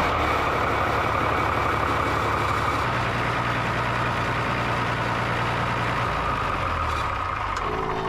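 Diesel engine of an irrigation pump set running steadily. Its note shifts about three seconds in and again about six seconds in, and eases near the end. It is driving the pump to fill the irrigator's hose line, but at revs too low to build pressure, by the farmer's own account.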